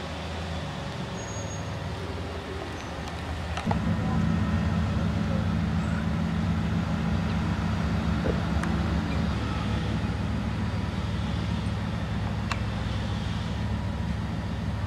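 Motor vehicle engine and road noise as a low, steady rumble. It steps up louder after a click about four seconds in and holds steady.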